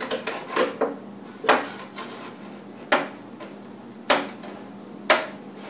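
Plastic milk jugs handled and set down on a countertop: a series of short, sharp knocks, about one a second.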